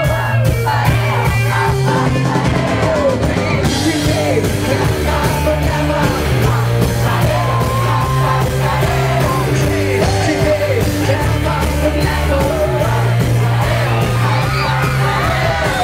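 Live band playing loud rock-style music: a male singer sings and shouts into a microphone over drums, electric guitar and a bass line that shifts every second or two.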